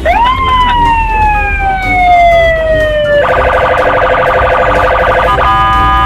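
Police car electronic siren: one wail that rises quickly and then slides slowly down, switching about three seconds in to a fast, steady pulsing warble that breaks off briefly twice.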